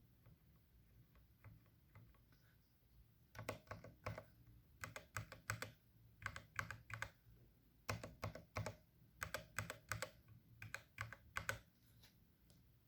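Unlubed linear mechanical keyboard switches being pressed: a few faint light key clicks, then from about three seconds in, quick bursts of several key presses at a time, repeated until near the end.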